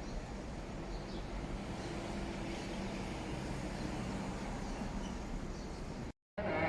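Steady low background hum, cut off abruptly near the end.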